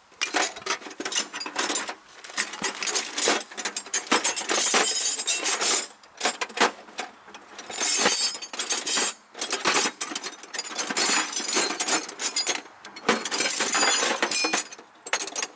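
Metal hand tools clattering and clinking as someone rummages through a box full of tools. The jangle is near-continuous, with short pauses every few seconds.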